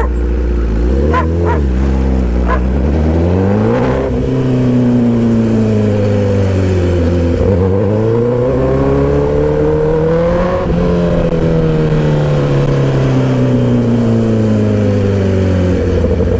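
Honda CBR1000RR Fireblade's inline-four engine under way: the pitch climbs for a few seconds, drops, climbs again about ten seconds in, then falls slowly as the throttle is eased off. A dog barks a few times about a second in.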